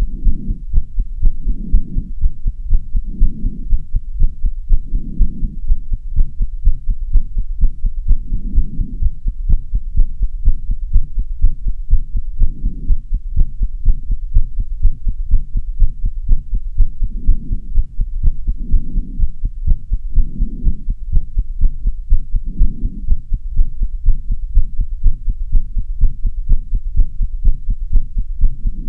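A person's heart beating fast and hard after half an hour of running up and down stairs, an even, rapid train of thumps over a steady low hum.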